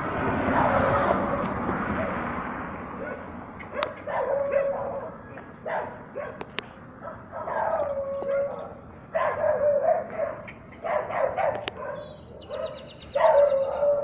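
A dog barking repeatedly in bouts, starting about four seconds in, after a swell of rushing noise over the first couple of seconds.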